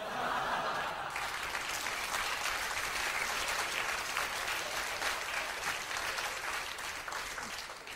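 Audience applauding, a dense, even clapping that cuts off abruptly near the end.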